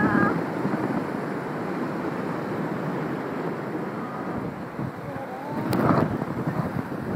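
Wind buffeting a phone's microphone as the rider crosses on an open hanging gondola above the sea. About six seconds in, a short rising cry from the rider and a couple of sharp knocks as the phone is jostled.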